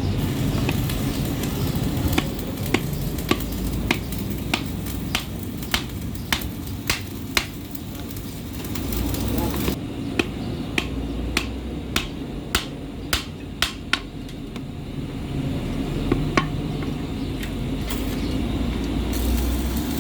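Hammer blows on metal in an even rhythm, a little under two a second, with a short pause in the middle and two more blows near the end, over a steady low rumble.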